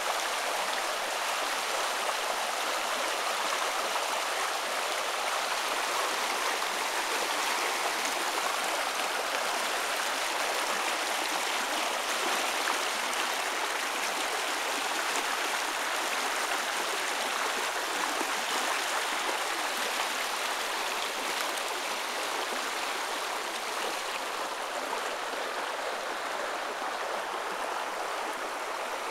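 Muddy floodwater from a cloudburst rushing along a flooded street and over its grass verges: a steady, continuous rushing of fast shallow water that eases a little near the end.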